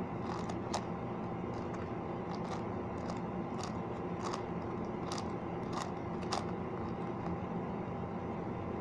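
5x5 Rubik's cube clicking as its layers are turned through an algorithm: a scattering of short, light clicks over a steady background hum.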